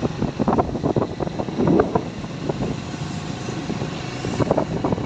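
A vehicle travelling along a rain-wet road, its noise rising and falling unevenly.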